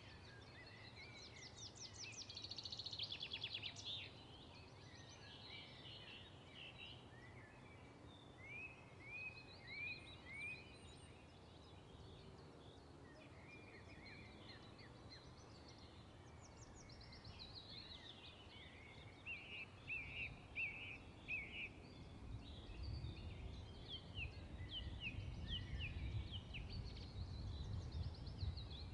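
Birds chirping in the background: series of short, quick chirps, with a fast trill about two to four seconds in. A low rumble joins them about two-thirds of the way through.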